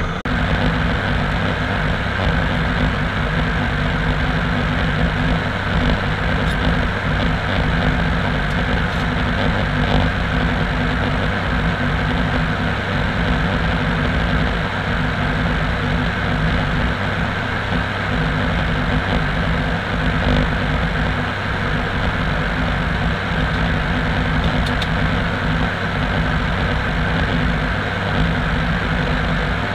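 ATR 72-600's twin turboprop engines and propellers running steadily in flight, heard inside the cockpit as an even drone of low tones over a wash of airflow noise.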